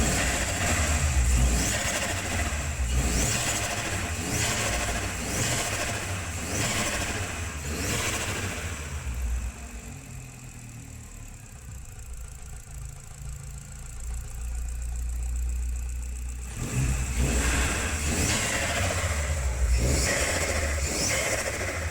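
Audi A3 1.8T 20V turbocharged four-cylinder engine being blipped over and over, with turbo flutter as the throttle snaps shut. The revs come about once a second, the engine settles for several seconds in the middle, then the revving starts again near the end.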